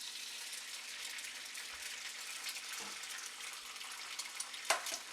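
Onions frying in butter in a non-stick frying pan: a steady sizzling hiss, with a couple of light knocks, the clearer one near the end.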